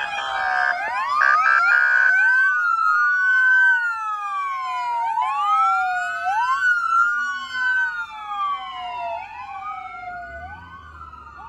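Several emergency-vehicle sirens on passing fire trucks wailing at once, their slow rising and falling tones overlapping out of step. A harsh buzzing horn blast sounds over them in the first two seconds, and the sirens grow fainter toward the end.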